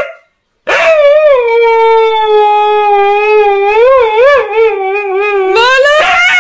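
Husky howling: a cry that breaks off right at the start, then after a short silence one long, wavering howl that rises again in pitch near the end.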